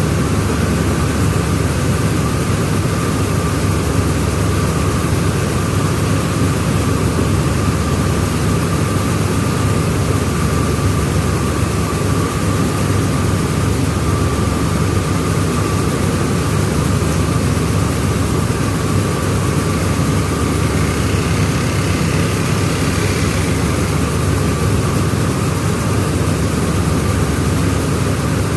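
Rice milling machine running steadily: a loud, unbroken mechanical drone with a constant high whine over it.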